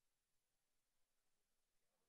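Near silence: faint hiss of the recording's background.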